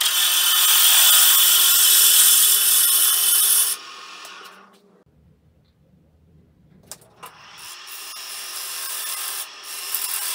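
Gouge cutting into a spinning Itín wood bowl blank on a wood lathe: a loud, steady hiss of shavings coming off. A little over a third of the way in the cutting stops abruptly, leaving a quiet stretch with a low rumble and a couple of sharp clicks. The cutting then starts again, growing louder toward the end.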